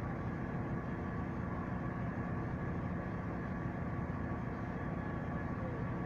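Heavy diesel engine running steadily at constant speed, a continuous drone with no changes in pitch.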